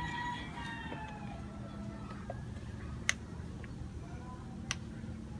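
A rooster crowing faintly in the distance, its call falling away in the first second and a half, then two sharp clicks about a second and a half apart over a steady low background hum.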